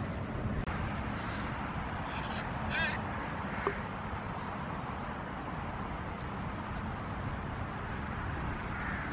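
A crow caws twice in quick succession about two and a half seconds in, the second call louder, over a steady rush of wind on the microphone. A single sharp click follows just after.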